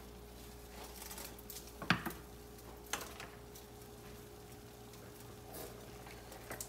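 Wooden spatula stirring and scraping chickpea flour roasting in oil in a nonstick frying pan, with two sharp knocks of the spatula on the pan about two and three seconds in. A faint steady hum runs underneath.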